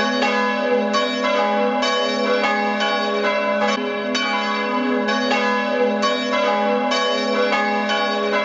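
Church bells ringing a peal, a new strike roughly twice a second over a sustained low hum from the bells.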